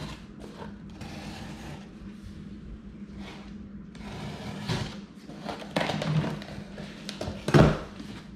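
Cardboard box and packaging being opened and handled: rustling and scraping with scattered clicks, and a sharper knock near the end.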